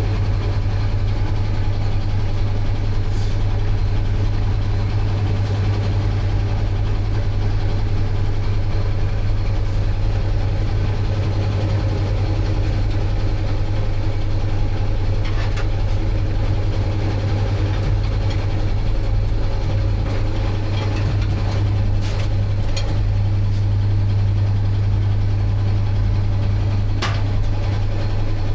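An engine idling steadily: a constant low hum with a few faint clicks over it.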